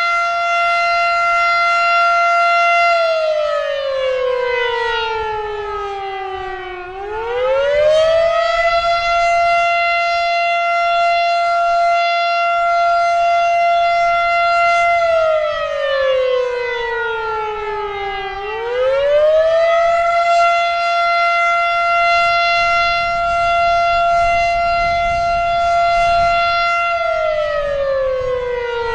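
Federal Signal Model 7 outdoor warning siren sounding the attack signal: a loud wail held at a steady pitch for several seconds, then sliding down over about four seconds and sweeping back up in about two. The fall-and-rise happens twice, and a third fall begins near the end.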